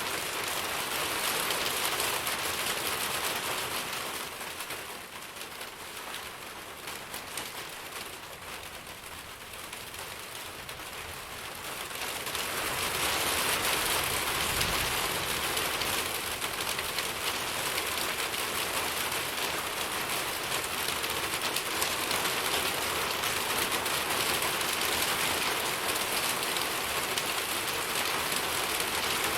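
Steady rain falling and pattering on surfaces; it eases for a few seconds and then returns heavier and holds steady.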